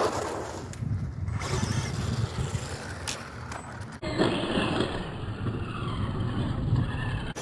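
Traxxas Bandit VXL RC car running, its tyres scrabbling over the ground, heard as a rough, noisy rumble. The sound changes abruptly about four seconds in.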